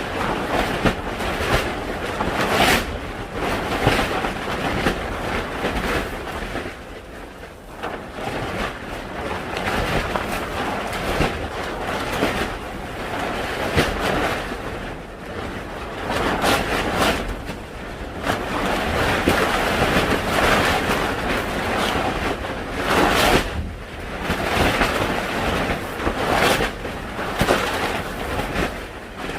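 Strong wind gusting over the microphone, swelling and easing every few seconds.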